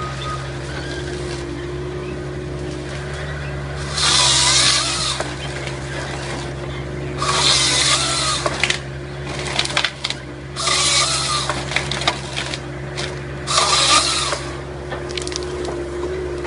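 Mini excavator's engine running steadily while the Nisula 425C harvester head's chain saw cuts through a pine log four times, each cut a loud burst lasting a second or so. Short clicks and knocks from the head gripping and feeding the log come between the cuts.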